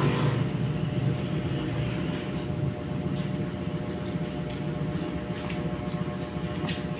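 A steady low mechanical hum, like a motor running, with a few faint clicks near the end.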